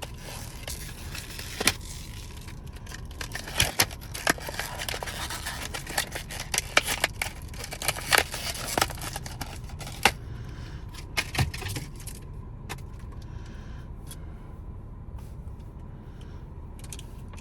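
Hand tools and their packaging being handled: rustling, scraping and sharp clicks and clinks as a screwdriver is unpacked and put into a tool bag. The handling is busiest in the first ten seconds and then thins out to a few quieter rustles.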